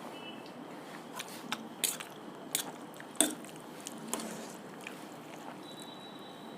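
Close-up eating sounds: chewing and biting, with a string of short, sharp wet clicks and crunches at irregular intervals, the loudest about three seconds in.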